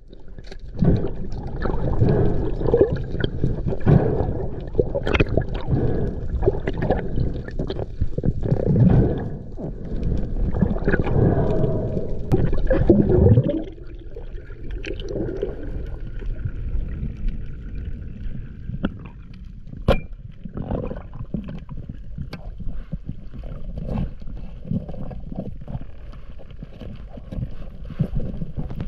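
Water rushing around an underwater camera housing as a freediver swims down with a speargun: a muffled, churning low rumble with scattered clicks. About thirteen seconds in it drops abruptly to a quieter hiss with faint ticks.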